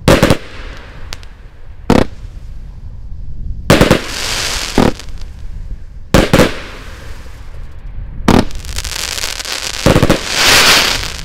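A 1.2-inch, 100-shot consumer fireworks cake firing shot after shot: about seven sharp bangs, irregularly spaced roughly every one and a half to two seconds. Several are followed by a hissing crackle from the bursting glitter stars, the longest near the end.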